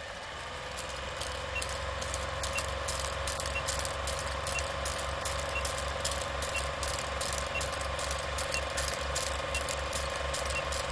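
Old film projector sound effect: an even, rapid mechanical clatter over a steady hum, with a short faint blip about once a second as a countdown runs.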